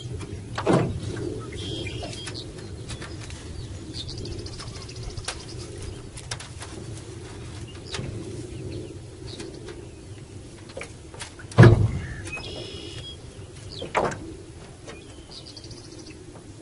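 Birds calling now and then, with a few sudden knocks from the trotline being hauled hand over hand in an aluminum boat; the loudest knock comes about two-thirds of the way through.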